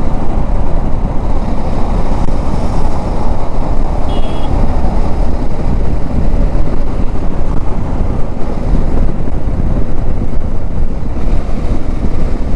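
Wind rushing and buffeting over a helmet-mounted microphone on a motorcycle at about 90 to 100 km/h, blended with road and engine noise. It is a loud, steady rumble, heaviest in the low end.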